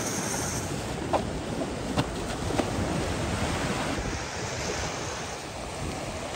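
Surf breaking and washing up the beach, with wind buffeting the microphone. A few short knocks land about a second, two seconds and two and a half seconds in.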